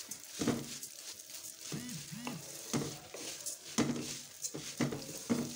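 Wooden spoon stirring vermicelli as it fries in ghee in an aluminium wok. There are repeated scraping strokes against the metal over a steady light sizzle.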